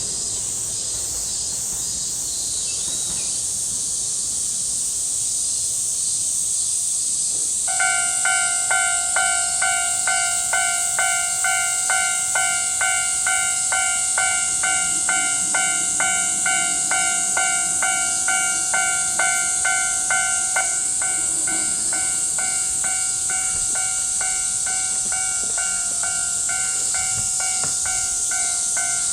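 Japanese level crossing warning bell starts about 8 seconds in, clanging about twice a second: the signal that a train is approaching and the crossing is closing. From about two-thirds of the way through, the strikes lose their sharp beat and the alarm goes on as a steadier ringing.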